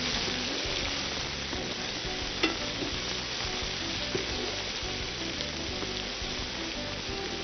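Chopped onions sizzling steadily as they fry in hot oil in a pan, with a single sharp click about two and a half seconds in.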